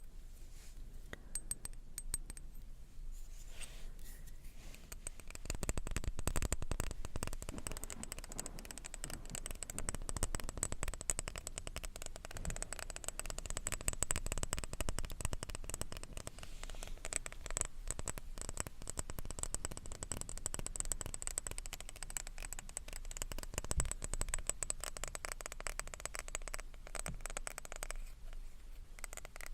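Light, rapid tapping and scratching on a glass object: a dense run of small clicks that grows busier about five seconds in.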